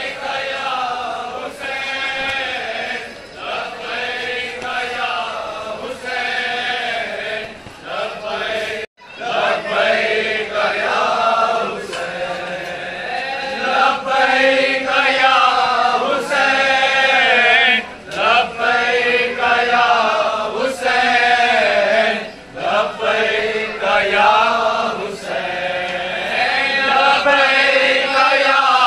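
A crowd of men chanting a nauha, a Shia Muharram lament, in unison, in lines that rise and fall. The sound breaks off for a moment about nine seconds in.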